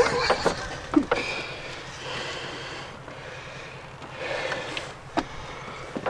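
A person breathing hard, with several heavy breaths about a second apart, winded from going up and down a steep hill. A few sharp knocks are heard among the breaths.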